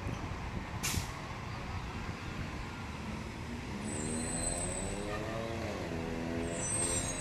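Side-loader garbage truck's diesel engine pulling away, its pitch rising, dipping and then holding, with short air-brake hisses: a sharp burst about a second in, and high hisses near the middle and near the end.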